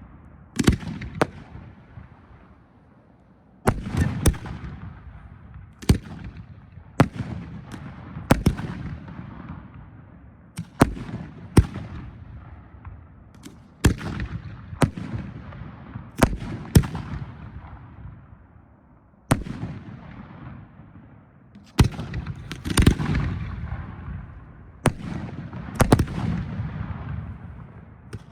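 Professional 1.3G display fireworks firing in a steady sequence: sharp bangs every second or two, some in quick pairs, each followed by a low rolling rumble that dies away.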